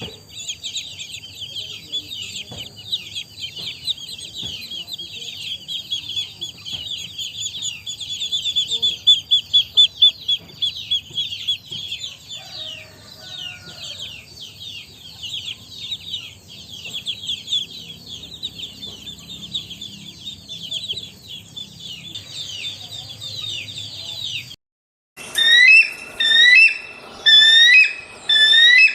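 A large crowd of chicks peeping, many high, short, falling calls overlapping without a break. A little before the end this cuts to a different bird giving about four loud whistled calls in an even rhythm.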